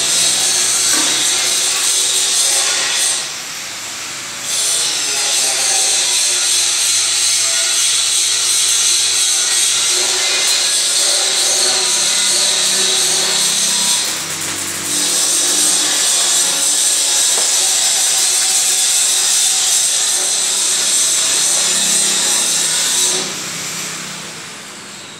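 A power tool running in the workshop: a loud steady hiss that cuts out briefly about three seconds in and again around the middle, then dies away near the end.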